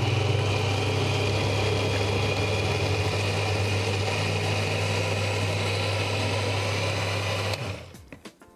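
Countertop blender running steadily as it blends a berry smoothie. It is switched off about seven and a half seconds in and spins down.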